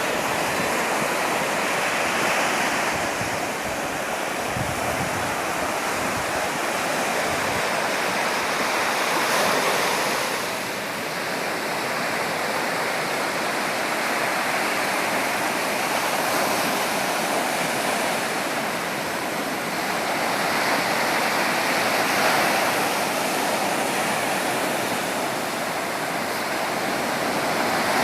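Sea waves washing in: a steady rush of surf that swells and eases every several seconds.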